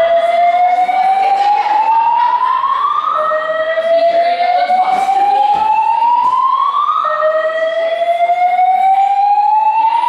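EST voice-evacuation fire alarm speakers sounding a slow whoop evacuation tone: a loud rising sweep that climbs for about four seconds, drops back and starts again.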